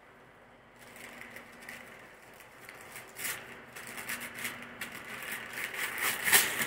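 Wrapping paper crinkling and tearing as a present is unwrapped by hand: a run of crackly rustles that grows louder, with the loudest rip near the end.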